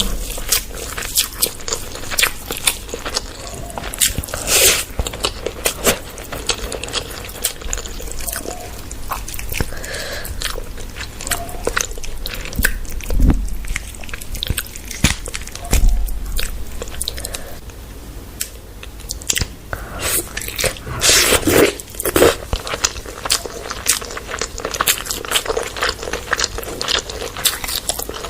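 Close-up eating sounds: chewing, biting and smacking on chowmein and a fried chicken leg piece, with many small wet clicks and a few louder crunches and knocks.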